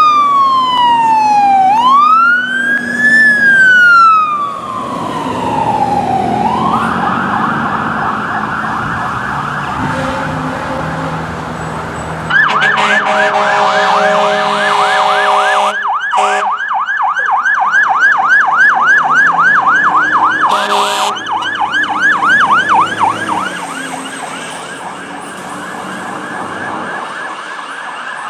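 Fire engine sirens: a slow wail sweeping up and down, switching after a few seconds to a fast yelp. Midway another engine's siren yelps fast, about four sweeps a second, and then fades toward the end.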